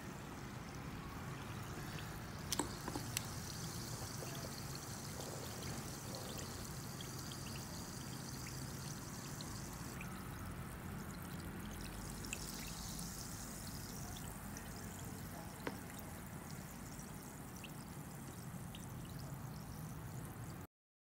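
Sparkling water poured into a glass and fizzing steadily, with a few sharp clinks of glass.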